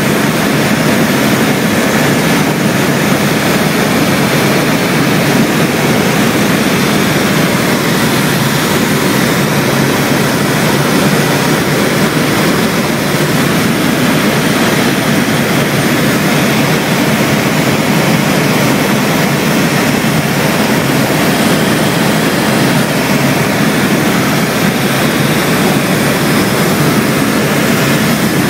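Steady engine and air noise inside the cabin of a small aircraft in flight, unchanging in level.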